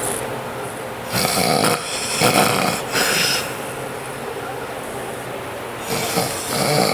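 Snoring: a long snore of several noisy breaths from about a second in, then another snore starting near the end.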